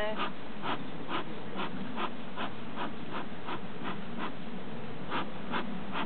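Beekeeper's bellows smoker being pumped in quick, even puffs, about two a second, blowing smoke onto a clustered honey bee swarm to calm the bees, over the steady hum of the bees.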